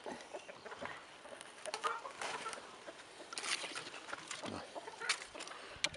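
Farmyard fowl clucking, with scattered rustles and a sharp click near the end.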